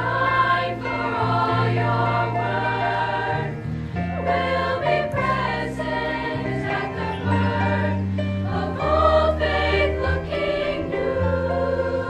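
All-female show choir singing in harmony over an accompaniment with a low bass line that changes note every second or two.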